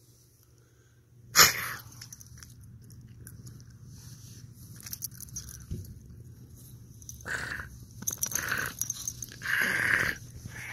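Dog making noises while play-fighting with a person, with one sudden loud sound about a second and a half in and several short louder bursts near the end.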